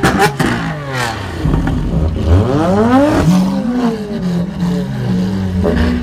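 Lamborghini Aventador SVJ's V12 through an aftermarket Ryft exhaust: sharp cracks at the start as the revs fall away, then one rev rising for about a second and dropping off sharply, then a lower, steadier engine note.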